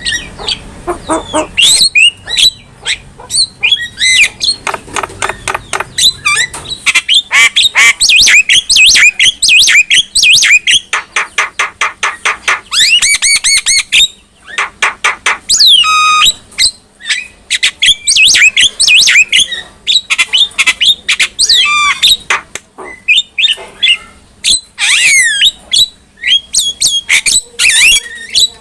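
Javan myna singing: a loud, unbroken, varied run of harsh squawks, whistles and quick chattering notes.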